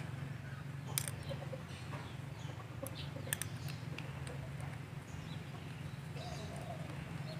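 Quiet background with a steady low hum, faint bird calls, and a few faint clicks of small metal airgun coupler parts being handled and fitted together.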